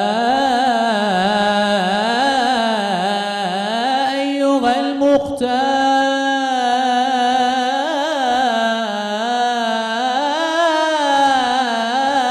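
A young male munshid's solo voice sings an unaccompanied Islamic ibtihal (devotional chant) in long, ornamented melismatic lines. The line breaks briefly about five seconds in.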